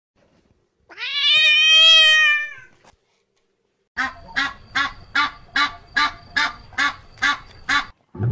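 A cat meows once, a long call starting about a second in. Then a duck quacks about ten times in an even series, roughly two and a half quacks a second.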